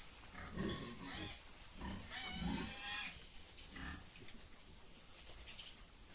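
Pigs calling: a few short calls in the first four seconds, the longest and highest-pitched one about two to three seconds in.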